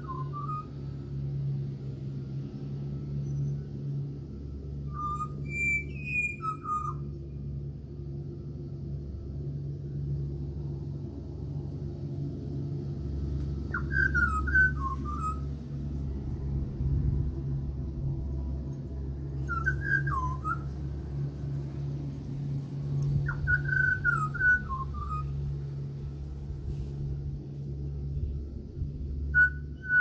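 Pied butcherbird singing: about seven short, fluty whistled phrases of a few gliding notes each, spread every few seconds, over a steady low hum.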